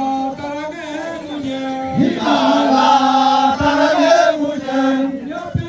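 Group of men chanting a Nyishi Buya dance song in unison over a long held note. About two seconds in, the chant swells louder with more voices for a couple of seconds, then drops back.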